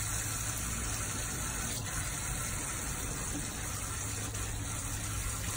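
Garden hose running a thin stream of water onto a wooden deck: a steady splashing hiss.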